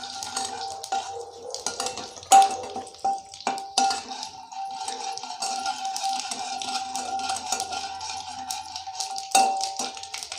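Mustard seeds, cumin, curry leaves and dried red chillies crackling in hot oil in a wok as a ladle stirs them, the ladle knocking sharply against the pan three times.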